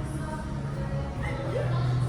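Background music with a steady low bass note.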